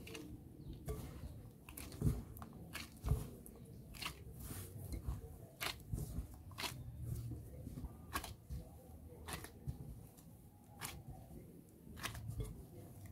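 A hand in a plastic glove squeezing and kneading a crumbly mix of mashed potato and breadcrumbs in a glass bowl: the glove crinkles and the mixture squishes and crunches, with frequent sharp crackles and a few dull thumps against the bowl.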